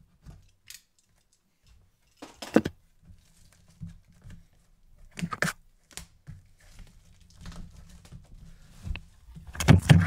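Handling noises from unpacking a cardboard box: a utility knife set down, then clear plastic wrap peeled and crinkled off the box, heard as a few short, sharp rustles and knocks, the loudest near the end.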